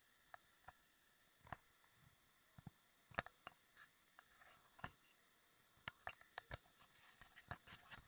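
Faint, irregular crunching clicks of footsteps on a loose-stone dirt track.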